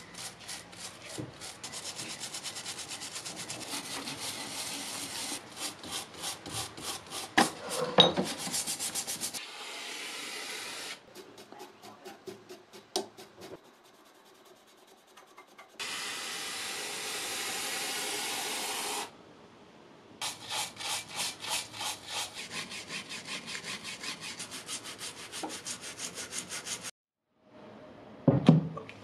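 Stiff brush scrubbing greasy vice parts in quick back-and-forth strokes, broken twice by a few seconds of steady hiss from an aerosol degreaser can. A heavy knock near the end.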